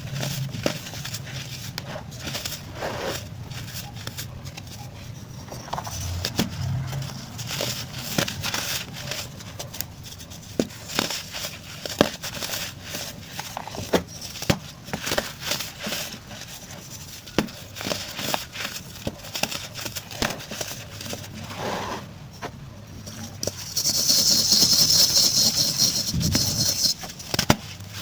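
Baking soda chunks being crushed and crumbled, a dense run of small crunches and crackles. Near the end a louder steady hiss lasts about three seconds.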